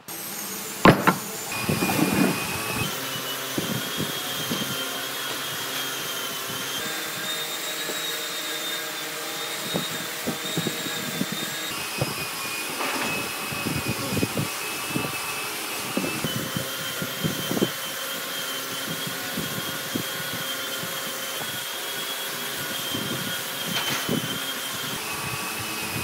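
Steady whirring of a running motor with a thin high whine that shifts in pitch a few times, overlaid by scattered light knocks and taps of wood and a steel rule being handled on a bench.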